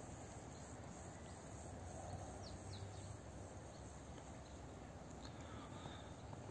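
Faint outdoor ambience over dry grassland: a steady high insect chirring, likely crickets, with a few short high chirps scattered through it.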